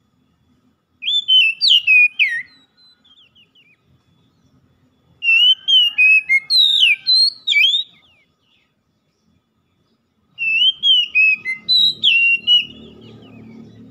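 Oriental magpie-robin (kacer) singing: three bursts of quick, varied whistled phrases, about a second in, in the middle, and near the end, with short pauses between them.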